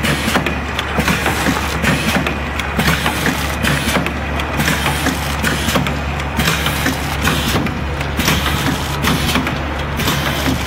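Automatic vertical liquid packing machine running. It makes a steady low motor hum under a clattering mechanical noise that dips and returns in a regular cycle about every one and a half to two seconds.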